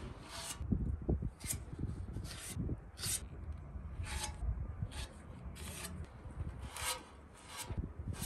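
Metal putty knife spreading and scraping body filler across a steel motorcycle fuel tank, in short scraping strokes roughly once a second.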